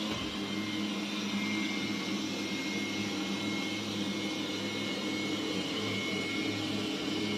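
Roborock Q7 Max robot vacuum running as it cleans: a steady whir from its suction fan and brushes, with a thin high whine held throughout.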